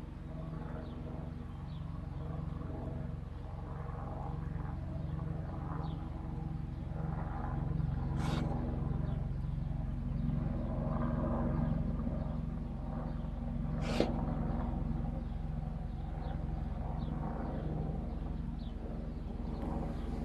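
Domestic cat making low, raspy wheezing vocal sounds, the hoarse meow shown as a symptom of its breathing trouble, over a steady low rumble. Two sharp clicks come about six seconds apart.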